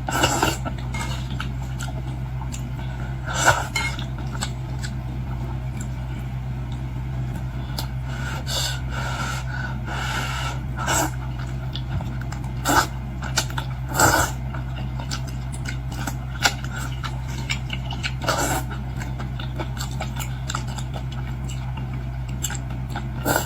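Utensils clinking and scraping against a bowl now and then, a dozen or so short sharp knocks spread out, with brief rustling in between, over a steady low hum.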